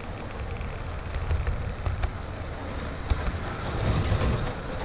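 HO scale model train running on its track: a steady low rumble of wheels and motor, with a few sharp clicks, the loudest about three seconds in.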